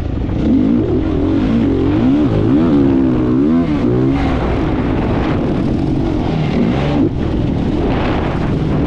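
A competition vehicle's engine running hard, its pitch rising and falling over and over as it revs and changes gear.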